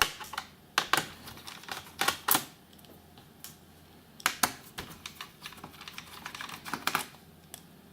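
About a dozen sharp, irregular clicks and taps from a laptop's plastic case and small parts being handled during disassembly.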